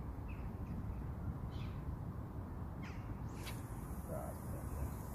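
Birds giving several short, harsh calls over a steady low wind rumble on the microphone; a steady high hiss comes in about three seconds in.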